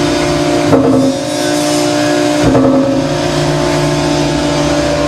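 Selco HS-12HD baler's hydraulic power unit, a 20-hp three-phase electric motor driving the hydraulic pump, running with a steady hum. A knock comes about three-quarters of a second in and another about two and a half seconds in, and the pitch of the hum shifts at each.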